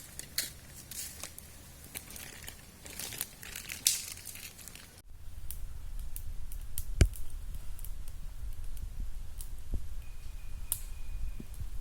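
Irregular crinkling and rustling, like something being handled, for about five seconds. It cuts off suddenly and gives way to a low steady rumble with a few scattered clicks and a brief thin steady tone near the end.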